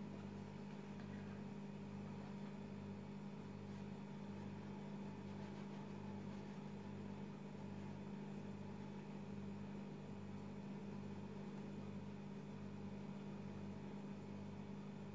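Steady low background hum with a slow, regular throb, about three pulses every two seconds.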